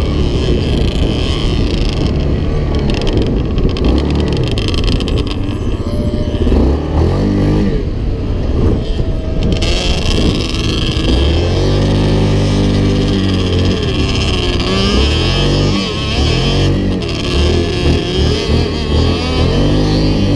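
Off-road vehicle engines running and revving, their pitch rising and falling again and again.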